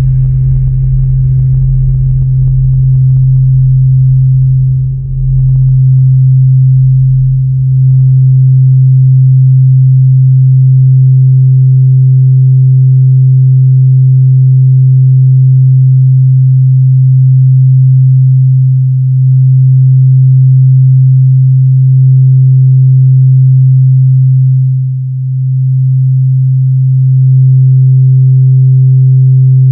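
Electronic drone music: a loud, steady, low sine-like tone is held throughout, with a fainter higher tone fading in and out over it. The last of a drum-machine beat dies away over the first several seconds.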